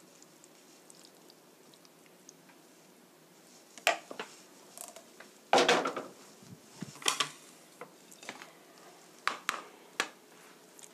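Dishes being handled: a few sharp clinks and knocks of a plate and pan on a glass-topped table after a quiet start, the loudest knock about halfway through.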